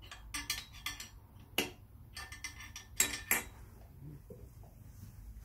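Metal hand tool clinking against the puller bolts and steel pulling plate as the bolts are turned evenly to lift a Suzuki GT750's cylinder block and break its base seal. It is a string of sharp metal clinks with short ringing, stopping after about three and a half seconds.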